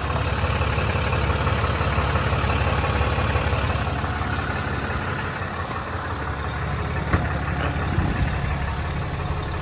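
Ram 5500's 6.7 Cummins diesel engine idling steadily, with a single light click about seven seconds in.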